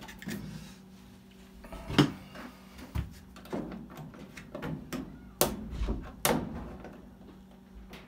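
Scattered clicks and knocks of hand work on a dryer's plastic-and-metal control console as the old timer/selector switch is worked off its mounting, the sharpest knocks about two seconds in and twice more around five to six seconds in.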